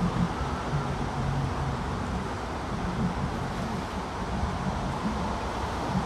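A motorboat's engine running low and steady, mixed with wind noise on the microphone.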